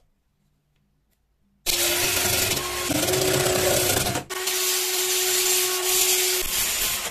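Power drill spinning a sanding pad against the outside of a rusty metal sheep bell: a steady, loud rasping hiss with the motor's whine under it. It starts about a second and a half in, breaks off for a moment a little past the middle, then runs on until just before the end.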